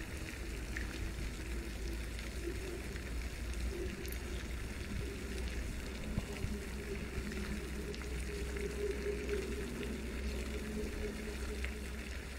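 Steady rushing, water-like background noise with a faint low hum underneath.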